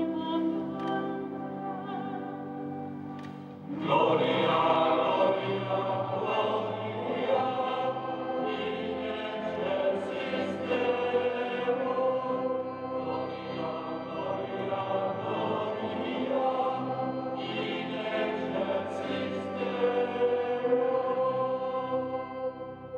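A church choir singing a liturgical chant during Mass. Held notes open it, then fuller singing comes in suddenly about four seconds in and carries on.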